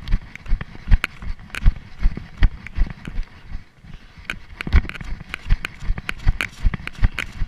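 Running footsteps on dry leaf litter and twigs, heard through a chest-mounted camera: steady footfall thuds nearly three a second with crackling leaves, easing off briefly about three and a half seconds in.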